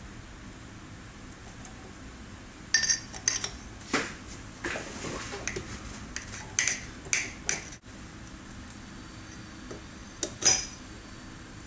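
Metal parts clinking and tapping together during hand assembly: a cluster of sharp clinks over several seconds, then another pair near the end. A black cylindrical housing is being fitted onto an air tool and a long hex key is worked down inside it.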